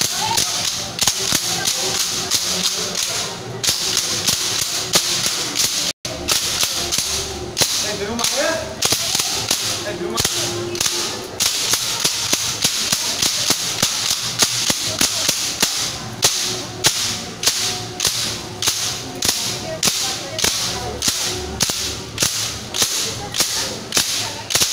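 Wooden saaps (Bhangra folding lattice clappers) clacking shut in a steady rhythm, about two to three sharp clacks a second. The sound drops out for an instant about six seconds in.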